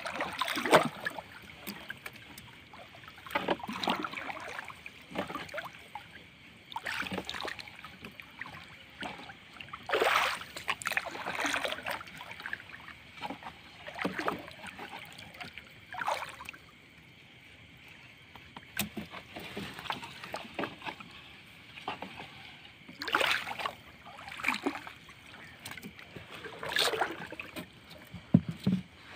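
Wet fishing net hauled by hand over a small boat's gunwale, with water splashing and streaming off the mesh in irregular bursts every second or few.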